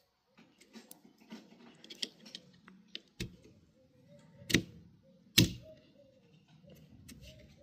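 Plastic clicking as a new rear wiper blade's clip is worked onto the Skoda Octavia III's rear wiper arm. It ends in two loud snaps about a second apart a little past halfway, as the clip latches home.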